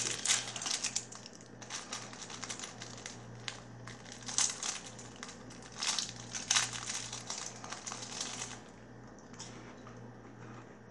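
Plastic wrapper of a pack of Austin jalapeño pepper jack cracker sandwiches crinkling and crackling as it is torn open by hand. The crackling stops about nine seconds in.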